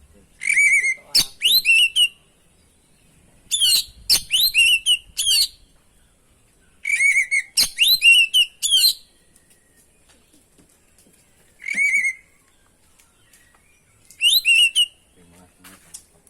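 Oriental magpie-robin (kacer) singing in short, loud bursts of rapid whistled notes that glide up and down. Five phrases come with pauses of one to three seconds between them.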